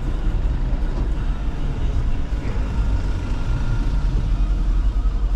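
Steady low rumble of a vehicle under way, with a faint high tone for about a second in the middle.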